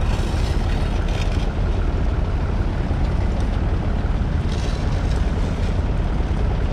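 1963 Massey Ferguson 35X's 2.5-litre three-cylinder diesel engine running steadily under load, pulling a two-furrow mounted plough through the soil, with a few short bursts of hiss over it.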